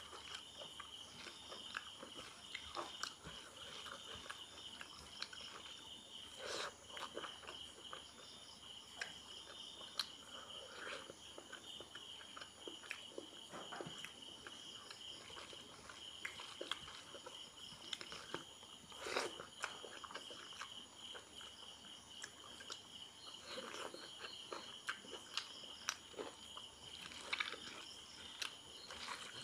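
Faint eating sounds: fingers mashing rice on a plate and a mouth chewing, with scattered wet clicks and smacks. A steady high insect trill runs underneath.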